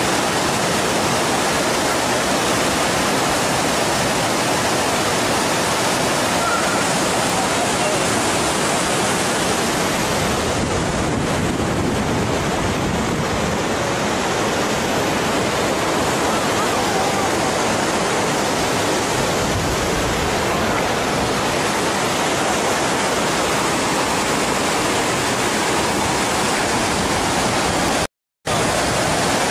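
Waterfall and cascading river water rushing steadily, cut off for a split second near the end.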